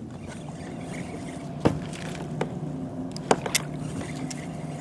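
Sharp knocks and clicks on a fishing kayak, four of them, the loudest a little under two seconds in, over a steady low hum.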